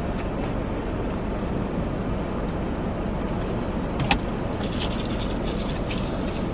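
Steady hum inside a car cabin with the engine idling. A single sharp click about four seconds in, followed by light crackling near the end.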